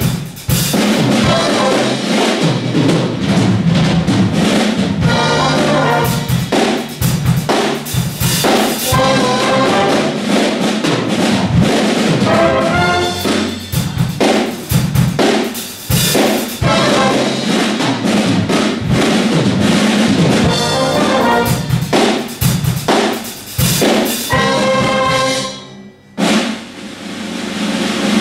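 Wind band playing a big-band-style piece: drum kit strokes and fills under loud brass chords, cutting off together near the end. Audience applause starts right after.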